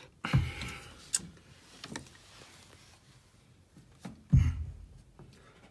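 Two dull thumps about four seconds apart, with a sharp click and a few light ticks between them: wood and tools being handled and knocked on a wooden subfloor.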